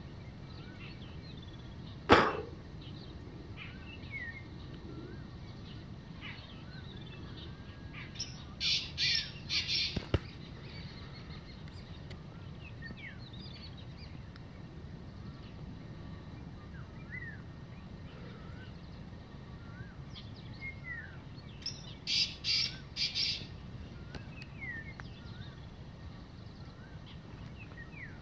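Black francolin calling twice, each call a loud phrase of a few short, high notes: once about eight seconds in and again about twenty-two seconds in. Small birds chirp faintly throughout. A single sharp knock about two seconds in is the loudest sound.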